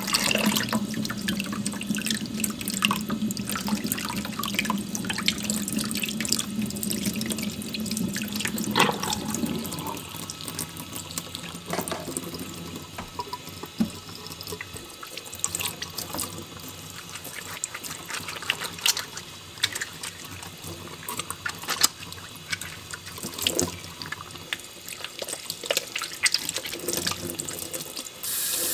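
Kitchen tap running into a stainless steel sink while hands rub a chicken egg under the stream, with splashing and small knocks. The flow sounds lighter after about ten seconds, and just before the end the rush of water suddenly gets louder.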